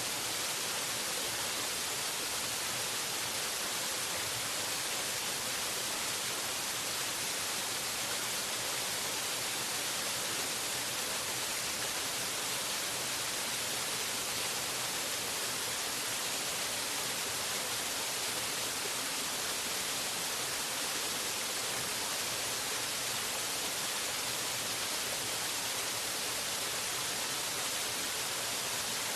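Waterfall rushing: a steady, unchanging hiss of falling water, strongest in the high end.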